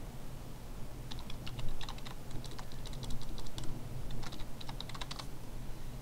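Computer keyboard being typed on, in two quick runs of keystrokes, the first about a second in and the second near the end, as one word is deleted and another typed in.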